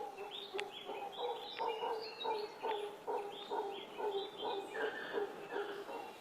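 Mantled howler monkey (mono congo) calling: a steady run of rough, repeated calls, about three a second.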